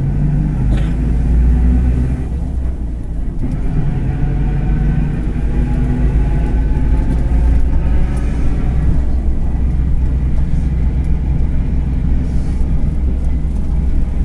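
Mercedes-Benz OF-1721 city bus diesel engine running under way with a steady deep rumble. A fainter whine rises and falls over it in the middle of the stretch, along with the growl of a bearing.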